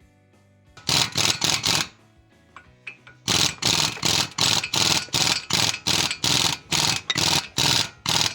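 Repeated short, sharp metallic tool impacts: a quick cluster of four about a second in, then a steady run of about two a second from a little over three seconds in, over faint background music.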